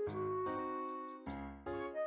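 Background music: a light tune of held chords that change every half second or so.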